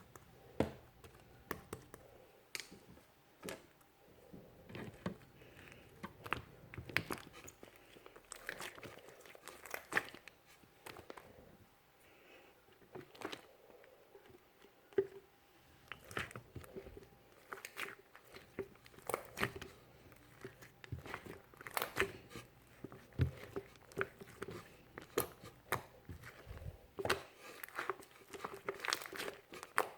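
Ivory-coloured slime being kneaded, stretched and poked by hand, giving irregular sharp clicks and pops.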